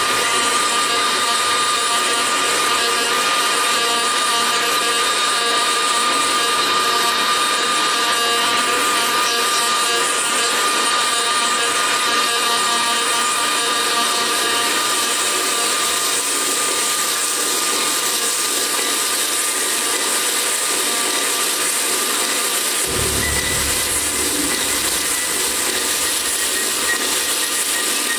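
Experimental electronic stage soundtrack: a dense, steady wash of noise with a held high tone running through it. A low rumble comes in about five seconds before the end.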